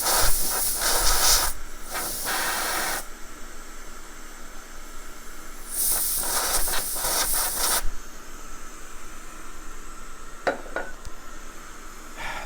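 Canned compressed air sprayed in three hissing bursts of one to two seconds each, blowing alcohol and flux out from under a circuit-board chip to dry it.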